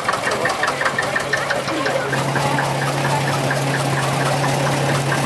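Vintage tractor engine running with a rapid, even knocking beat that fades away about two seconds in as the tractor passes, while a steady engine hum carries on.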